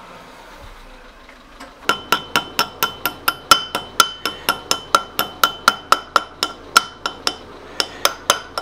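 Small hammer rapidly tapping a cotter pin into the hole through a propeller's castle nut and shaft: light metal-on-metal taps, about four to five a second, each with a short metallic ring. The tapping starts about two seconds in, with a brief pause near the end.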